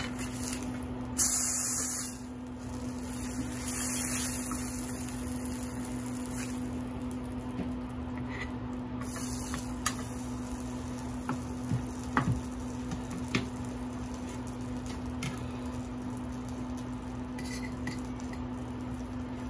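A piece of chicken frying in oil in a steel fry pan, sizzling in hissy spurts during the first few seconds, over a steady low hum. Later come light clicks and taps of a spatula and a knife cutting the cooked chicken on a plastic cutting board.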